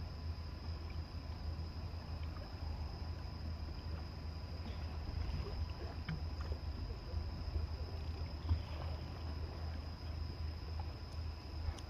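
Steady low engine rumble in a harbour, with a faint constant high whine and a few small ticks over it.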